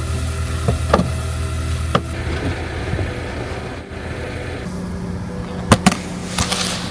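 A car running with a steady low hum, overlaid by scattered sharp knocks and crunches. About four seconds in, the hum shifts to a different steady tone.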